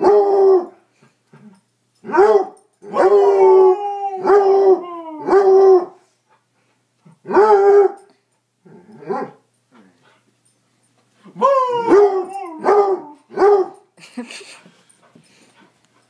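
Basset hound howling and baying in repeated bouts. Each call starts high, drops quickly and holds a lower note, with short pauses between the bouts.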